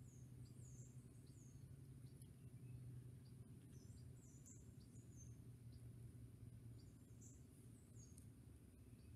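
Near silence: faint outdoor ambience with a steady low hum, a faint high hiss and many short, high, falling chirps scattered through.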